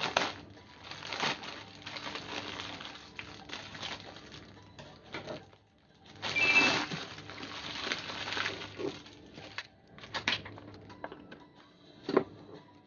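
Irregular rustling and handling noises with a few sharp clicks as shimeji mushrooms are handled and cleaned by hand.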